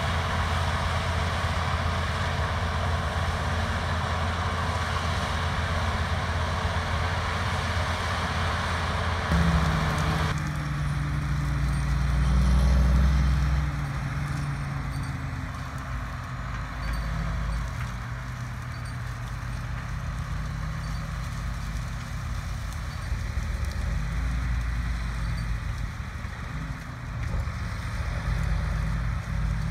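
Heavy diesel harvest machinery running steadily. For the first ten seconds a dense, even mechanical noise sits over a low engine hum. It then changes abruptly to a deep engine sound alone, which swells briefly a few seconds later and settles into a steady run.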